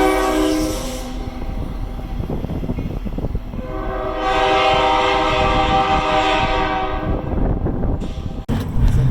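Steam locomotive whistle blowing two long chime blasts over the low rumble of the moving train: one ending about a second in, and another from about four seconds in lasting about three seconds.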